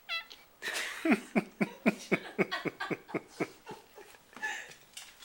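Hungry cat whining: a brief chirp, then a rapid run of about ten short cries, each falling in pitch, roughly four a second. This is the complaining of a frustrated cat kept from its food bowl.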